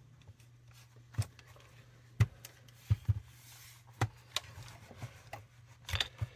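Scattered sharp clicks and light knocks, about eight, irregularly spaced, from small hard objects being handled on a workbench, over a steady low hum.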